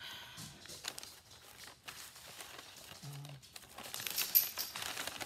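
Paper packaging rustling and crinkling as it is handled, louder for the last second or so.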